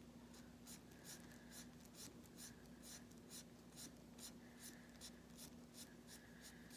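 Fine-tip marker scratching over a small cutout in short, quick strokes, about three a second, faint.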